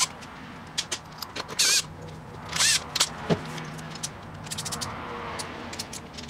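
A cordless drill runs clutch-cover bolts into a motorcycle engine case in two short whirring bursts. A single knock follows, then the quick clicking of a hand ratchet snugging the bolts.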